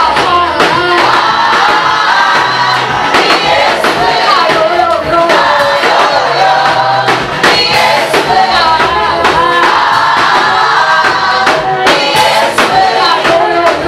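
Choir singing a gospel worship song over band accompaniment with a steady drum beat.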